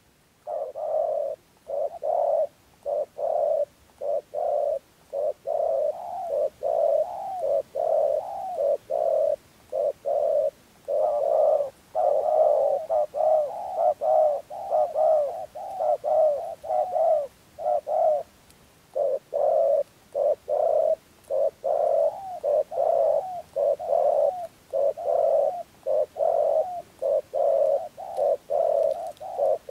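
Spotted dove cooing in a long, rapid run of short coos, about two a second, with one short pause a little past the middle. This is the sustained 'rền gù' cooing that trappers want from a decoy bird.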